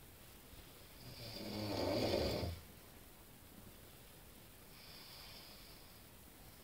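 A sleeping person snoring: one loud snore that swells for about a second and a half and stops abruptly, then a much fainter breath a couple of seconds later.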